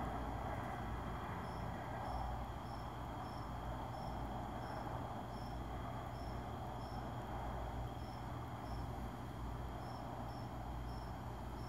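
A cricket chirping: short, high chirps repeating at an even pace, a little under two a second, over a steady background hiss and low hum.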